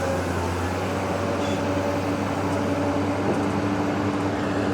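Heavy diesel engine running steadily, a constant low hum with an even pitch, from the excavator or dump truck working at the riverbank.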